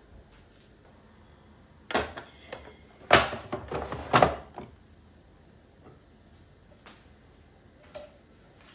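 Kitchen things being handled: a single knock, then a short run of knocks and rattling about three to four and a half seconds in, like a cupboard or drawer being worked.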